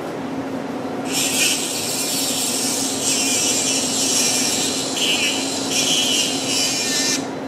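A surgical high-speed burr runs while it cuts through the first metatarsal bone to make a minimally invasive bunion osteotomy. A high-pitched hiss that varies in strength comes in about a second in and stops shortly before the end, over a steady low hum.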